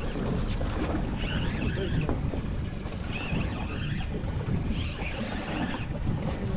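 Wind rumbling across the microphone, with sea water washing against a boat's hull.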